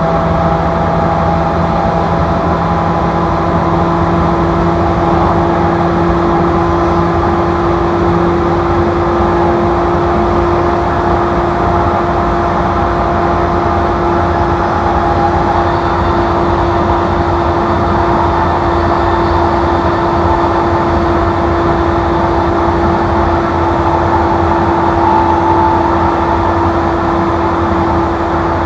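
Inside an E235-series electric commuter train running steadily: a constant running rumble with a steady hum from the drive equipment.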